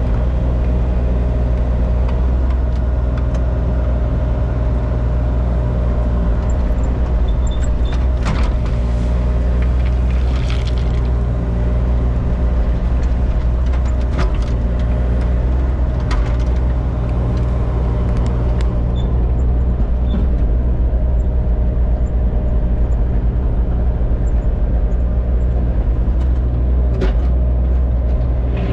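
Mini excavator's diesel engine running steadily, with a few sharp knocks scattered through.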